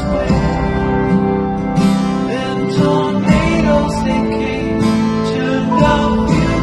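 Background music: acoustic guitar strumming with sustained notes, possibly with a singing voice.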